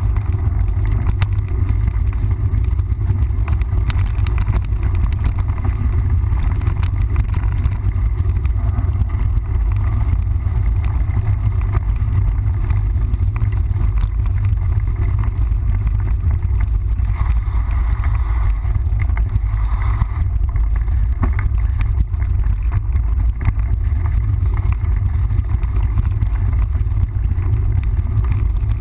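Steady, loud low rumble of wind buffeting the microphone of a camera riding on a moving mountain bike, with scattered clicks and rattles from the bike over the trail.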